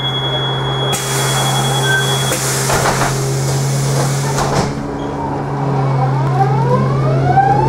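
Škoda 14Tr trolleybus heard from inside: the folding doors shut with a few knocks, then the electric traction drive starts to whine in several rising pitches as the trolleybus pulls away from the stop. A steady low hum runs underneath throughout.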